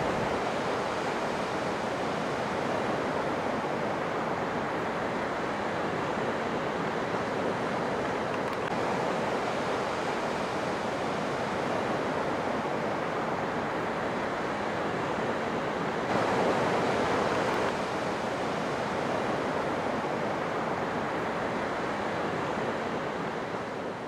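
Ocean surf washing steadily onto a beach, with a slightly louder wave about two-thirds of the way through.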